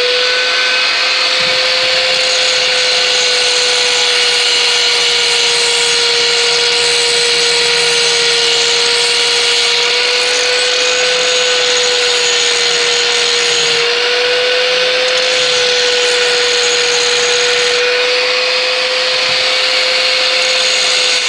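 Hand-held rotary grinder running at full speed, grinding the cut-out edges of a Honda H22 intake manifold while it is ported for airflow. It gives a steady whine whose pitch wavers slightly as the tool is pressed into the work.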